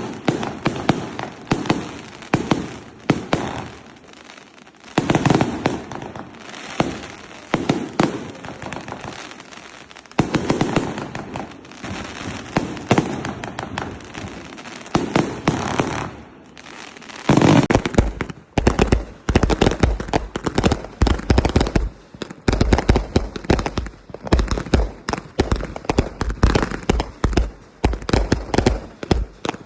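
Fireworks crackling and popping in rapid, dense strings of small bangs. About two-thirds of the way through they turn denser and heavier, with deep thumps among the cracks.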